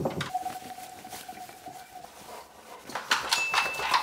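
Wet bullmastiff shaking water off its coat: a rapid spray-and-flap clatter of loose jowls, ears and wet fur, trailing off at the start and coming again in the last second. In between, a thin steady tone holds for a couple of seconds.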